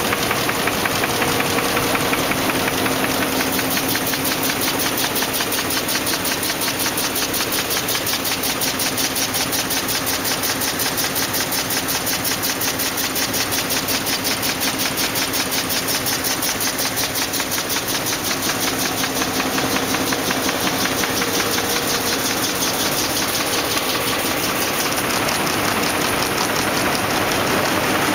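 Envelope folding and gluing machine running at production speed: a steady mechanical clatter with a fast, even beat.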